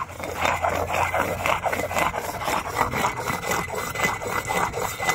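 Hard hand-held grinding stone rubbed back and forth over sand on a flat grinding stone, a steady rhythm of gritty scraping strokes, grinding mine tailings down to mud to free fine gold locked in the sulfides.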